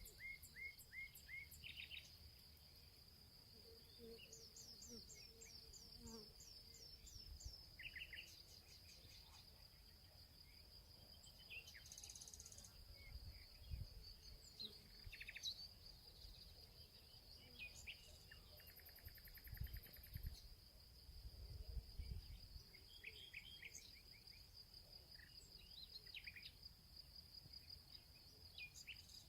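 Faint outdoor ambience: a steady high insect trill throughout, with runs of short bird chirps coming and going and a few soft low thumps.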